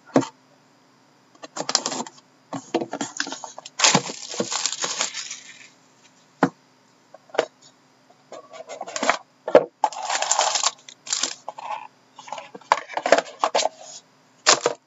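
Panini Dominion hockey card box being opened by hand: its plastic wrapping and cardboard rustling and scraping, with short clicks and taps as the lid is worked open and the box and pack are set on the table.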